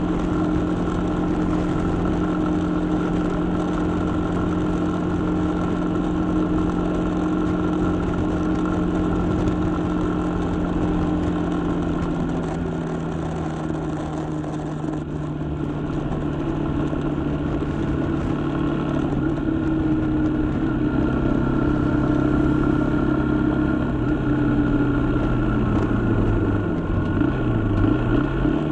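Suzuki Gixxer 150's single-cylinder four-stroke engine running as the motorcycle is ridden. It holds a steady note, then drops gradually in pitch as the bike slows, and the note wavers near the end.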